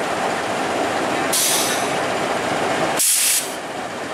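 Diesel engine of a KAI CC206 diesel-electric locomotive running steadily while the train stands, with two short hisses of air about a second and a half and three seconds in.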